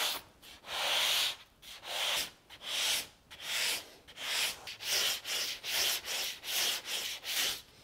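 Hand sanding: sandpaper on a hand-held block rubbed back and forth over a faired fibreglass cabin-top edge. The scratchy strokes come about one a second at first and quicken to about two a second.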